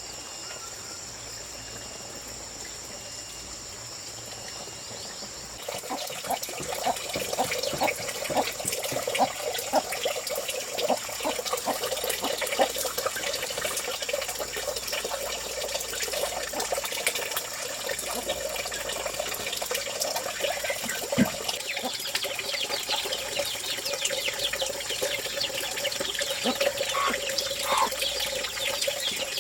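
Water splashing and trickling, becoming much louder and busier about six seconds in, over a steady high-pitched whine.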